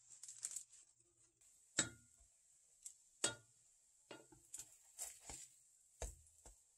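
A wooden spatula knocking and scraping against a frying pan as hotteok are pressed and turned in hot oil. Several sharp knocks come a second or more apart, over a faint steady high hiss.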